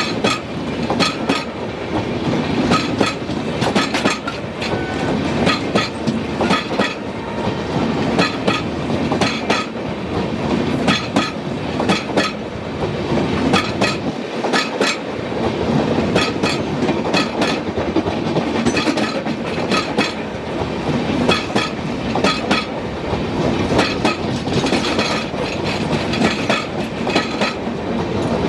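Passing passenger train's wheels clattering over the rail joints in a steady clickety-clack: groups of sharp clicks come about every second over a continuous rolling rumble.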